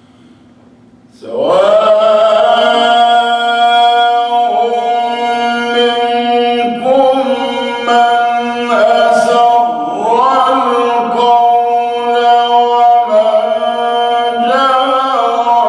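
A man's voice chanting Quranic recitation in a long, melodic phrase, starting about a second in and holding drawn-out notes that bend and ornament between pitches. A faint steady hum is heard before the voice starts.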